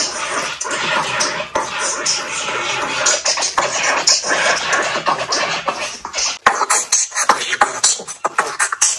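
Music with DJ-style record-scratching effects, choppy and stuttering, with a busier run of short scratches in the last few seconds.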